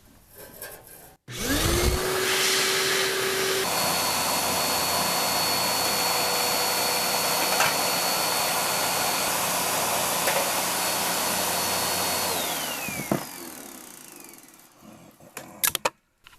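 A small electric motor tool spins up with a rising whine, runs steadily for about ten seconds, then winds down. It is being used to clean the oxidation off a gas water heater's thermocouple. A few light clicks of handling follow.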